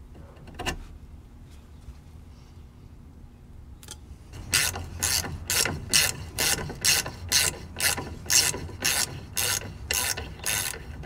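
Ratchet wrench with a socket on the castle nut of a front lower ball joint stud, ratcheting back and forth in quick even strokes about two a second, starting about four seconds in. The nut is loosening and coming off easily.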